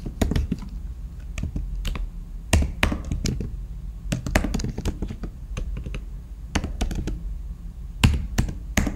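Computer keyboard keys being typed slowly and unevenly, single clicks a fraction of a second apart with a few louder strikes, over a low steady hum.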